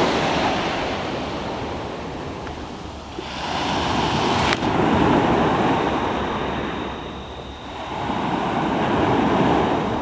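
Sea surf washing on the shore, swelling and falling back about every four to five seconds. A sharp click comes about halfway through, followed by a faint steady high whine.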